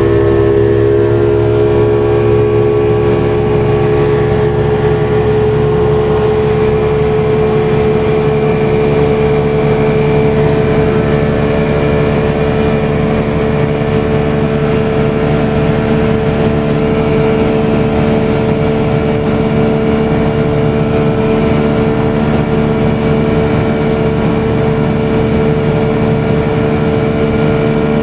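A vehicle's engine running steadily, a continuous droning hum at a constant pitch over a low rumble.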